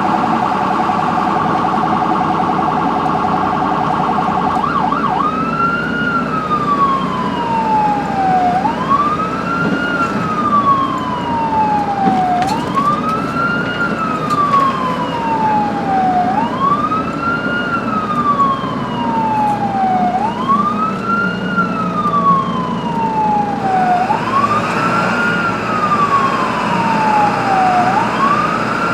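Ambulance siren over the rumble of the moving vehicle. It warbles rapidly for the first five seconds or so, then switches to a slow wail that rises quickly and falls away over about four seconds, repeating steadily.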